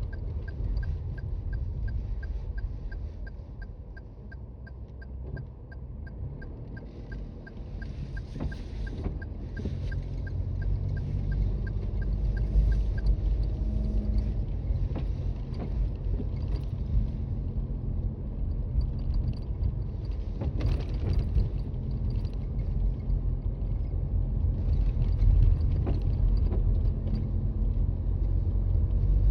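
Cabin noise of a Toyota Raize compact SUV driving on a snowy road: a steady low rumble of tyres and engine that eases off a few seconds in and then builds again. A rapid, evenly spaced ticking runs through the first dozen or so seconds, then stops.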